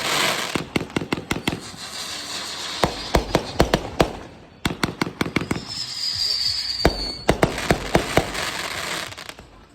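Fireworks going off: a rapid run of sharp bangs and crackling, with a high whistle that falls slightly near the middle.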